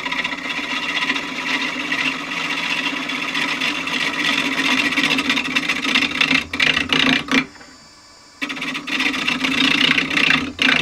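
Turning tool cutting into a square sapele blank spinning on a wood lathe at about 500 rpm, the edge striking the blank's corners as it roughs it toward round, tearing out as it goes. The cutting breaks off for about a second near the end, leaving only the lathe running, then starts again.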